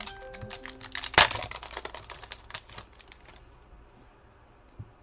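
A stack of trading cards being riffled and flicked through by hand: a fast run of card-edge clicks for about three seconds, loudest about a second in, then trailing off.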